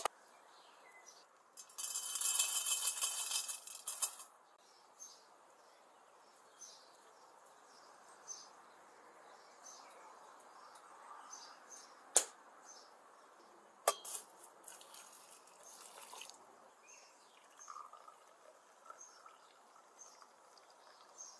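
Liquid poured in a steady stream for about two seconds near the start, then sharp metal and glass clinks of teapot and tea glasses, a second, shorter pour, and quieter trickles of tea being poured into a small glass near the end. Faint bird chirps sound throughout.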